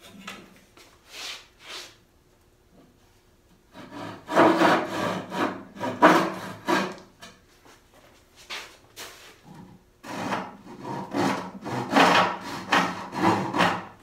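A hand tool working wood in quick repeated strokes while cutting a tenon: a few light strokes, then two loud runs of strokes at about three a second with a pause between.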